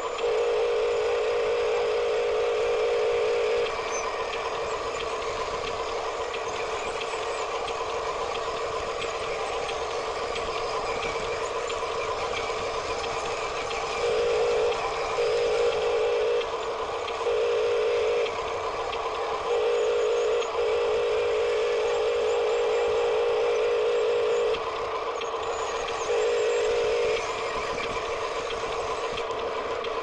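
Toy RC dump trucks running: a steady background hum with a flat-pitched tone that switches on and off repeatedly, each time for one to four seconds.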